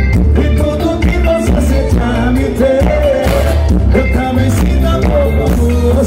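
Live forró band playing loudly over a big PA, a lead voice singing over heavy bass and a steady drum beat.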